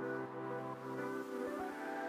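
Background music of held, ambient-style chords that change every second or so.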